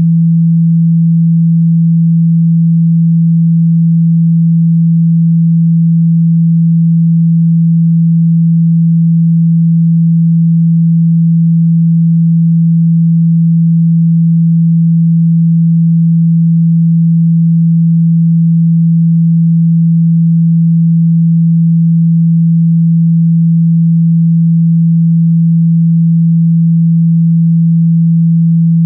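A single steady pure electronic tone, low-pitched at just under 200 Hz and unchanging in pitch and loudness: a sine-wave meditation tone for chakra activation.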